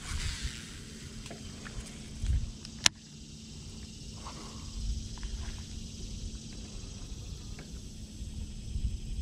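Quiet handling of a baitcasting rod and reel: low rumbles, and one sharp click about three seconds in.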